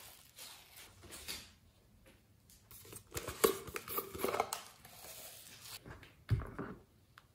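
Small foam beads poured from a plastic bottle into a glass dish of slime, pattering and rustling in two pours, with the clicks of the plastic bottle being handled. A dull knock near the end.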